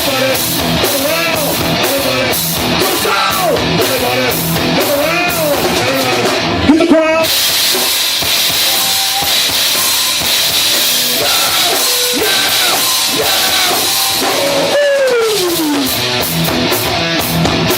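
Live rock band playing loud, a drum kit driving the song. A cymbal wash runs through the middle, and a pitched line slides steeply down near the end.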